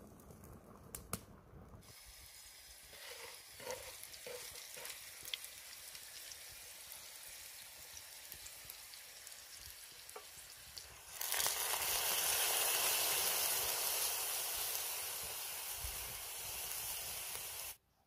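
Food frying in a hot pan: a steady sizzle with a few small knocks, turning much louder and brighter for the last third before cutting off suddenly. A few clicks come at the start.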